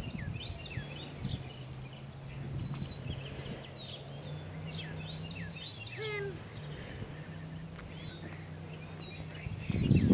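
Birds chirping and calling outdoors, many short high chirps and whistles throughout, with one call about six seconds in that sweeps sharply downward, over a steady low hum.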